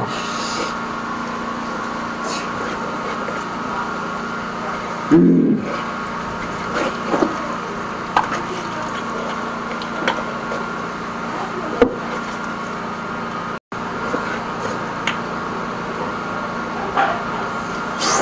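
Steady hum of a high-pressure drain jetter's pump motor running, with a few short knocks and clicks of hose and gear being handled; the loudest knock comes about five seconds in.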